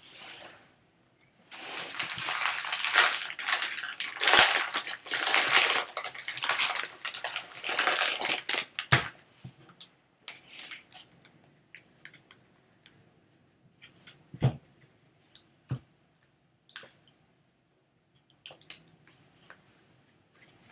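Foil wrapper of a Bowman Draft trading-card pack crinkling and tearing as it is ripped open, a dense crackle lasting several seconds. After it come sparse light clicks and taps as the stack of cards is handled and sorted.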